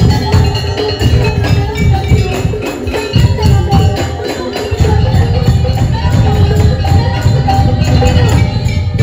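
Daul Madura ensemble playing loud, fast music: heavy drums under dense, rapid percussion, with a wavering melody line on top. The deep drum beat drops out briefly about three seconds and four and a half seconds in.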